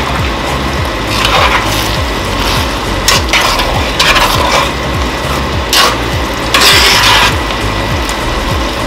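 A spoon stirring thick, simmering chicken stew in a large heavy pot as tomato paste is mixed in. Short scraping swishes come every second or so, the longest and loudest about seven seconds in.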